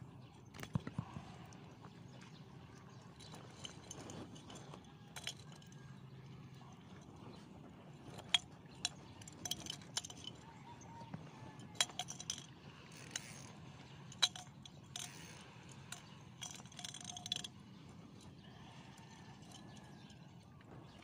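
Scattered light clicks and clinks of fishing tackle being handled (hook, line, rod and float), irregular and thickest in the middle stretch, over a low steady hum.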